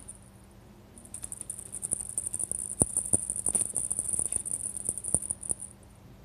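A cat thrashing about on carpet after a feather wand toy: a rapid, scratchy high rustle of paws, claws and feathers from about a second in until near the end, with a couple of dull thumps as it lands.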